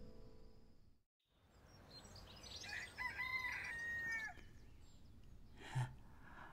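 A rooster crowing in a village, with small birds chirping, after piano music fades out in the first second. A short, sharp breath sounds near the end.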